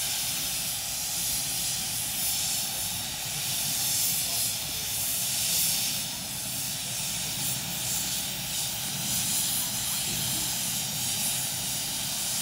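Steam hissing steadily from a small saddle-tank steam locomotive, GWR 0-4-0ST Trojan: a continuous high hiss with no beat, holding level throughout.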